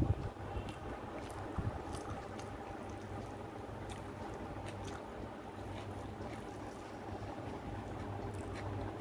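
Soft, wet squishing of rice being mixed by hand with thin chicken curry gravy on a plate, then chewing, heard as faint scattered clicks and smacks over a steady low hum.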